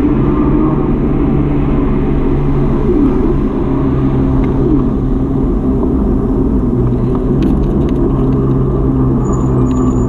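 A motor vehicle's engine running steadily with a low hum, with a few faint clicks near the end.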